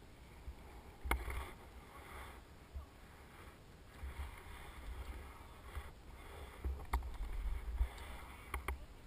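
Wind buffeting the microphone in uneven gusts, with bursts of rustling and a few sharp clicks, about a second in and twice near the end.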